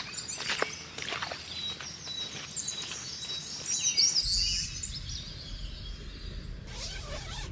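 Small birds chirping and calling, with scattered short ticks. About four seconds in the sound changes abruptly to a steady low rumble of outdoor background noise.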